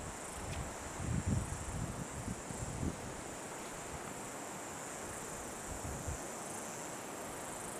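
Steady high-pitched chirring of insects in the evening, with a few low thumps in the first three seconds.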